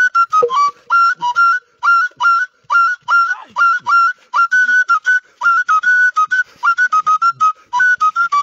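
Shrill, whistle-like notes from a small flute, blown in quick short notes on two or three pitches, many with a brief dip at the start.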